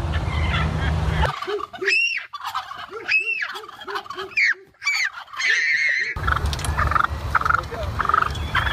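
Turkey gobbling: a quick run of short low notes with higher arching calls over them, from about one to six seconds in. A steady low rumble lies under the golf-course footage before and after.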